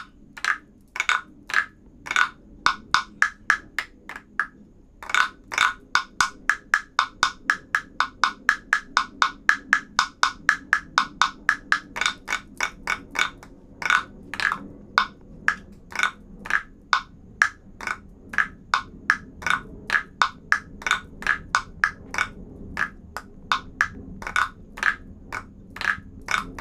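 Wooden frog guiro played by scraping a stick along its ridged back, giving a long run of short rasping croaks at about two to three strokes a second, with a brief pause about four seconds in. Each stroke imitates a frog's croak.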